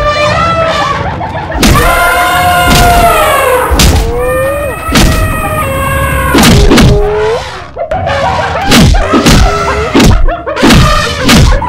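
Cartoon fight sound effects: loud animal cries with long gliding pitches over heavy thuds that come about once a second.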